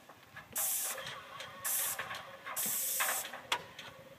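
Paint spray gun hissing in three short bursts of about half a second each.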